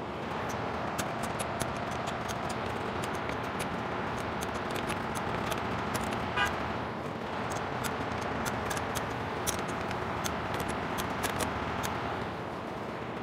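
Socket ratchet clicking in short runs as connecting-rod nuts on a crankshaft are tightened, over a steady background hum.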